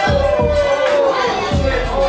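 Music with a heavy kick-drum beat and a wavering melodic line.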